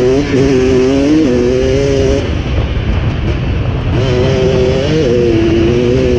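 Two-stroke dirt bike engine pulling under throttle while riding, its pitch stepping up through the revs. The engine note fades for about two seconds in the middle, then picks up again over a steady rush of wind.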